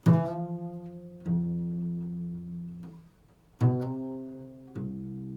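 A plucked string instrument playing slow, low improvised notes: four notes, each struck sharply and left to ring out.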